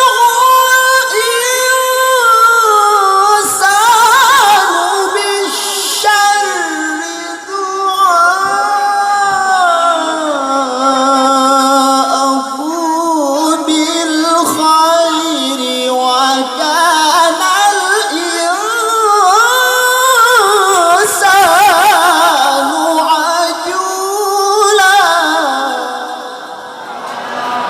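A male qori reciting the Quran in the melodic tilawah style: a single high voice holding long, ornamented notes that slide up and down through an extended phrase.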